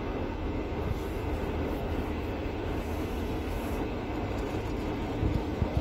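Steady road and tyre noise heard from inside a moving car's cabin, a low, even noise with no change in pace.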